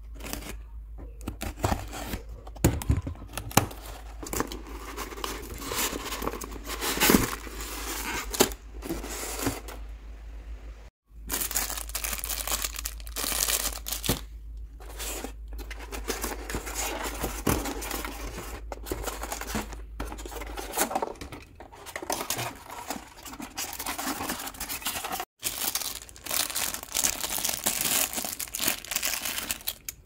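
Packing tape on a cardboard box being slit with a craft knife, then tearing, crinkling and scraping of packaging as a toy RC excavator is pulled out of its foam tray. The rustling is irregular and broken twice by brief dropouts.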